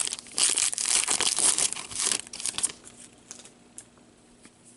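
Crinkly wrapper of a trading-card pack being torn and crumpled for about two and a half seconds, followed by a few faint clicks of cards being handled.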